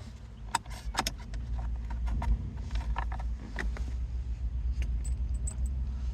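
Scattered small clicks and light rattles of plastic trim and loose parts being handled as a car's centre-console shifter cover is lifted off, over a steady low rumble.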